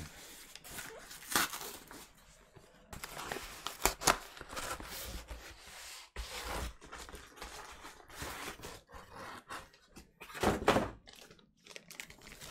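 A cardboard vinyl-record mailer being handled and opened: packing tape tearing and cardboard rubbing and crinkling, with a few sharp knocks, the loudest about ten and a half seconds in.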